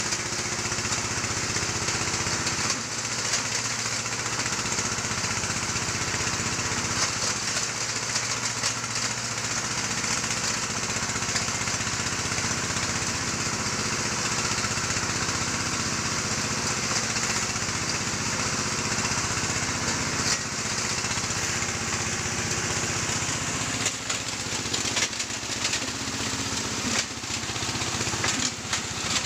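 Engine-driven gold-ore stone grinding machine running steadily, a continuous engine hum under a noisy grinding clatter, with a few uneven knocks near the end.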